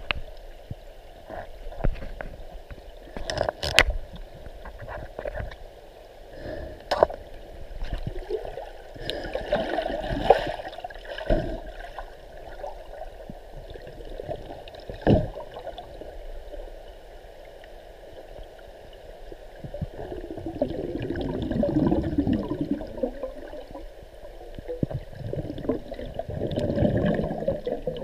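Muffled water sloshing and gurgling, heard through a camera held underwater while a snorkeler swims. The noise swells and fades, with a few sharp clicks and knocks.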